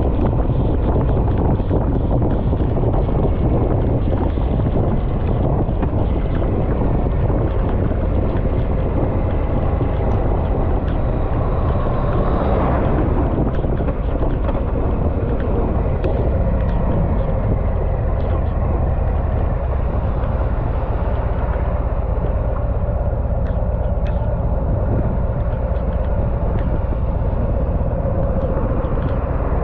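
Harley-Davidson motorcycle running at road speed, its low engine rumble mixed with heavy wind noise on the microphone. A brief swell of sound comes about twelve seconds in.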